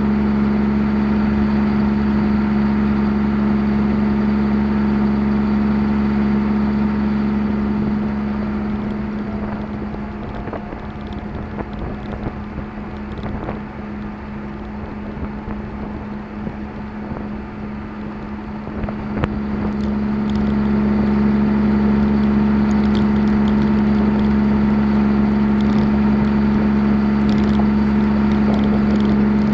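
John Deere 7230R tractor towing a trailed boom sprayer at steady working speed: a constant machine drone with a strong even hum. It drops in level for about ten seconds in the middle, then comes back up, with a single sharp click just before it returns.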